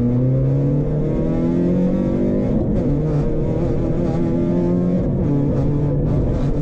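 Rally car engine heard from inside the cockpit, accelerating hard: the revs climb and drop back at each gear change, about three upshifts.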